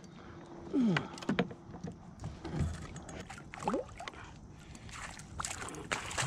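A hooked pickerel being reeled in beside a kayak: water splashing and sloshing with scattered sharp clicks. There are a few short sliding squeaks, one falling about a second in and one rising near the middle.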